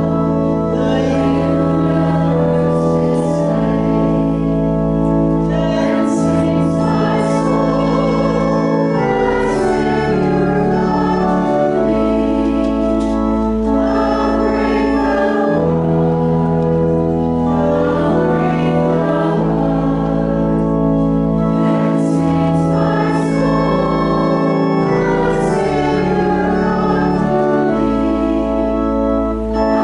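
Church organ playing a slow hymn in held chords over a deep pedal bass, with voices singing along.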